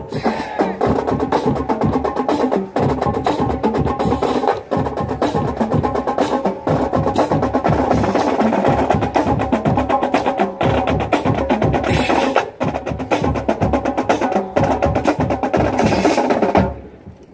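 Marching band playing while marching: wind instruments hold the tune over a drumline beating a steady, busy rhythm. The playing stops abruptly just before the end.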